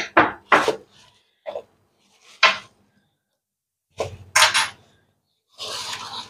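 Plastic packing wrap crinkling and rustling in short bursts as parts are handled in an open cardboard box, with a louder cluster of rustles about four seconds in and a longer stretch of rustling near the end.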